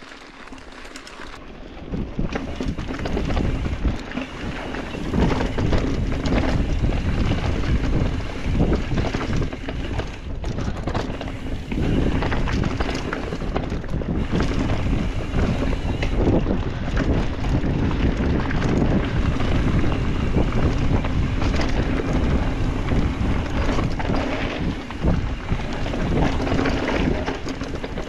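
Wind buffeting the microphone of a camera riding on a mountain bike, over the rattle and knock of the bike on rough dirt trail. The noise grows loud about two seconds in and stays loud.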